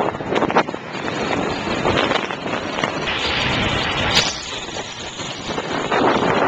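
Wind buffeting the microphone of a camera riding on a moving recumbent bicycle, surging and easing in gusts, with road noise from the ride underneath.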